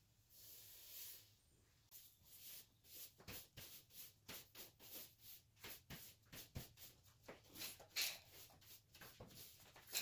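Faint, irregular clicking and rustling, several short clicks a second, starting about two seconds in.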